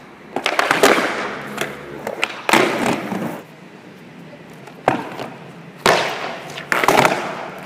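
Skateboard clacking on hard stone pavement during flatground tricks: about five sharp clacks of the board's tail and wheels hitting the ground, each followed by a brief rolling rattle of the wheels.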